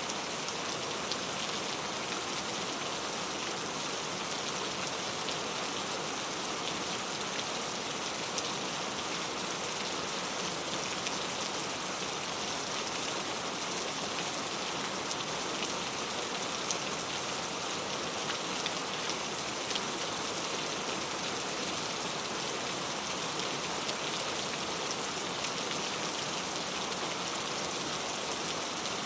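Steady rain falling, with the even hiss of the downpour and a few single drops ticking out of it, unchanging throughout.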